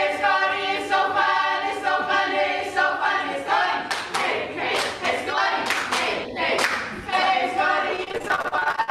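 A few young women singing a cheerful song together over a video call, with hand claps in the middle.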